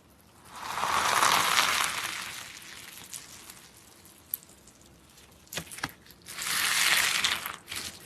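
Slime being squeezed and worked by hand, crackling and crunching in two long bursts, with a few sharp clicks and pops between them.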